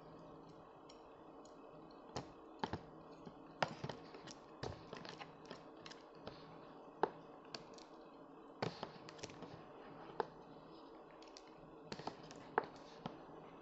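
Chopsticks clicking and tapping irregularly against a bowl and each other while stirring noodles: a scatter of short, sharp clicks.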